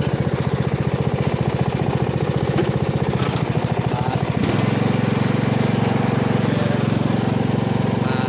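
Riding lawn mower engine running with a steady pulsing beat; about four and a half seconds in its sound changes abruptly to a smoother, steadier note.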